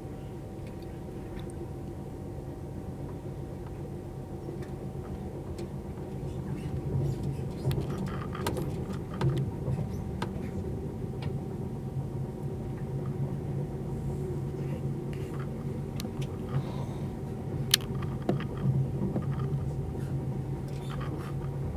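Passenger train running at speed, heard from inside the coach: a steady rumble with a low hum, joined about seven seconds in by scattered clicks, knocks and rattles, with one sharp click near the end.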